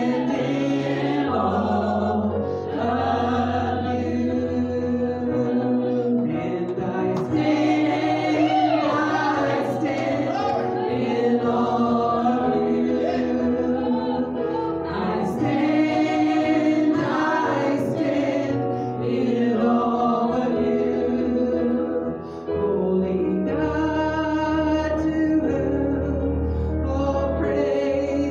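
Gospel song sung by women's voices into microphones, over a sustained instrumental accompaniment.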